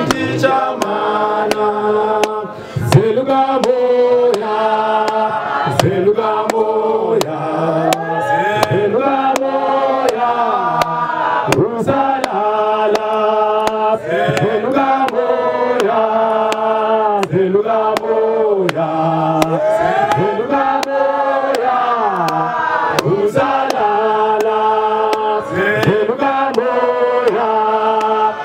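Church congregation singing a chorus together in several parts, with sharp beats at a steady tempo keeping time.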